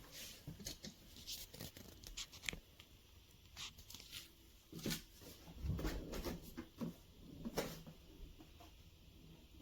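Faint handling noises from hard-shell suitcases being moved: scattered clicks and light knocks, with a brief low rumble about six seconds in.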